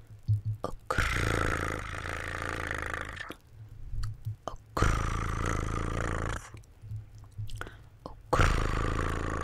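ASMR mouth sounds made close into the microphone: three long, rough breath sounds of about two seconds each, with soft wet mouth clicks in the gaps between them.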